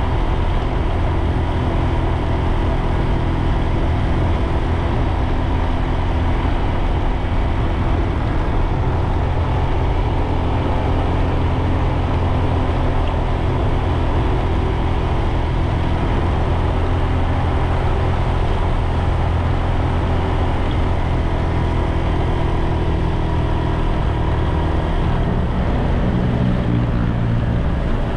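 Motor scooter engine running steadily as it climbs a hill, with road and wind noise. Its low engine note shifts near the end.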